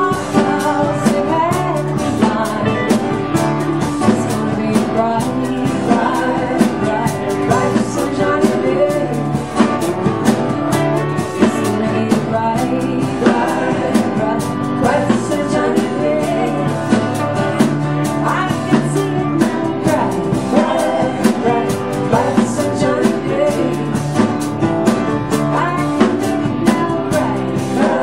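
Live band music: a woman singing over strummed acoustic guitar, with a second guitar and a steady low bass line.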